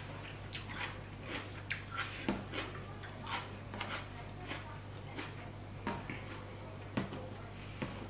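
A person eating papaya salad and rice noodles: wet chewing and mouth smacks, short and irregular, about one or two a second.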